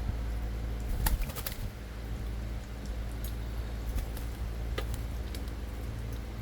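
Scattered sharp clicks and taps, a quick cluster about a second in and single ticks later, from a pet black-headed caique's beak and claws as it moves about, over a steady low hum.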